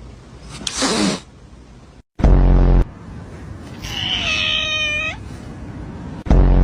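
A domestic cat meows once, a drawn-out call of about a second near the middle. Two short, loud, low buzzing sounds start and stop abruptly, one before the meow and one after it.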